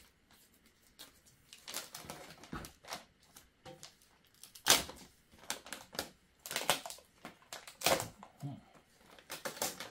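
Hands working at the packaging inside a 3D printer: irregular clicks, taps and rustles, with a few sharper knocks in the middle.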